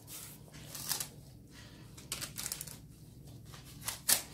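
Gloved hand sweeping diced tomatoes off a wooden cutting board onto lavash rolls in a parchment-lined baking tray: soft scraping and rustling strokes of glove, board and baking paper, with a sharper, louder stroke near the end.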